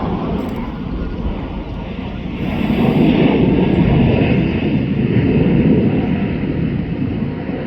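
Jet airliner's engines: a steady rushing roar that swells from about two seconds in, holds loudest for a few seconds, then eases off near the end.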